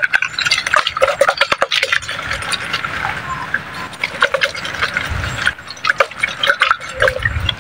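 A plastic soft-drink bottle trap being handled and loaded with wet flour bait, the bait sloshing and pouring into the bottle amid many sharp clicks and crackles of the plastic.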